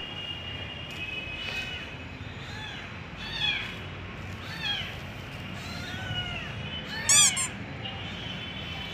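Cat meowing repeatedly: about half a dozen short meows, each rising and falling in pitch, the loudest about seven seconds in.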